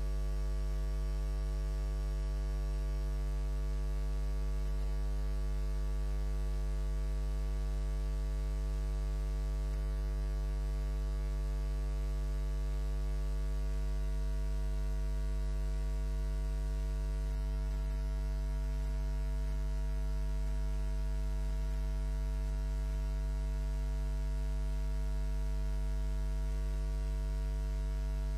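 Steady, unchanging electrical mains hum, low and buzzy, with no other sound over it.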